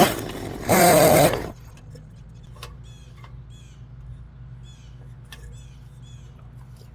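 A loud rustling noise stops about a second and a half in. After it, a bird calls repeatedly in short, high, curved notes over a steady low hum.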